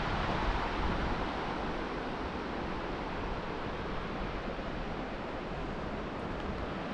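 Steady wind rushing, with low buffeting on the microphone that eases off about a second in.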